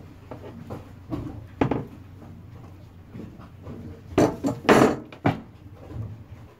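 Handling noises from working on a hollow plastic fishing buoy and the tools around it: light knocks and rubbing, with a louder run of scraping and clatter a little past four seconds in.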